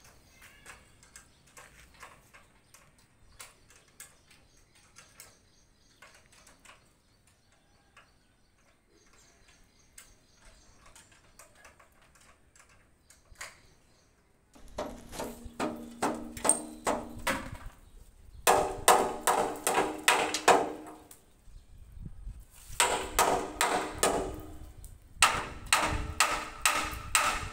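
Hammer striking steel column shuttering in four quick runs of ringing metal blows, starting about halfway through, to knock the formwork plates loose from the cast concrete pillar. Before that, only faint clicks and taps.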